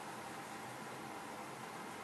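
Steady, even hiss of room tone and recording noise, with no distinct sound.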